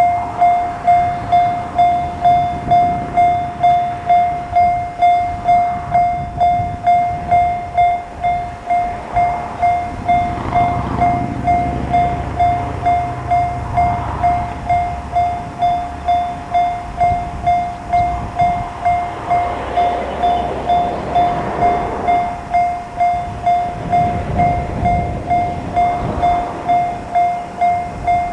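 Japanese level crossing warning bell ringing in an even 'kan-kan' beat of about two strikes a second. A Matsuura Railway diesel railcar rumbles past over the rails in the middle and again toward the end.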